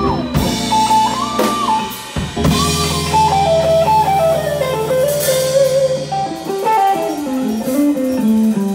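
Live band playing: an electric guitar takes a lead line with bent notes that works its way down in pitch, over a held Hammond B-3 organ chord, bass guitar and drums. The held chord drops out about six seconds in.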